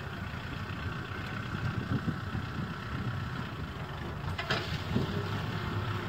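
Farm tractor's diesel engine running steadily under load while pulling a plough through the field, its sound mostly low-pitched, with a brief click about four and a half seconds in.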